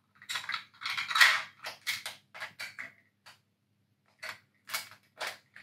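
Hard plastic Whale Bomber zord toy clicking and rattling as it is handled: a quick run of clicks in the first three seconds, then a few separate clicks after about four seconds.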